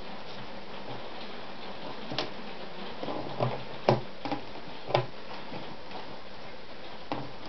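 A handful of sharp mechanical clicks and knocks from an Anker Automatic RZ sewing machine being worked by hand, its handwheel turned and the work shifted under the presser foot, with no motor-driven stitching. A steady hiss sits under them.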